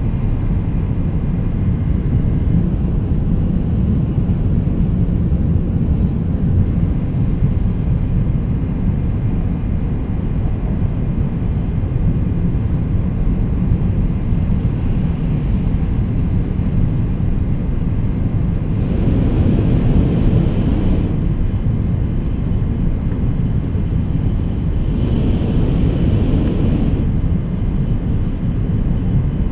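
E2 series Shinkansen running at high speed, heard from inside the passenger cabin: a steady low rumble from the wheels, track and running gear. Brief stretches of louder hiss come in about two-thirds of the way through and again near the end.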